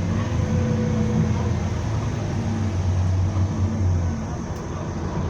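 Bus engine and running noise heard from inside the bus: a steady low drone that eases off about four seconds in.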